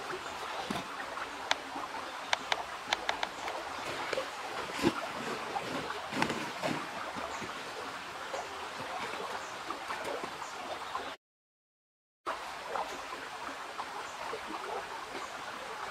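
Steady rush of river water, with dry roots and twigs snapping and crackling underfoot as she steps down and sets things on them, busiest in the first five seconds. The sound drops out completely for about a second near the end.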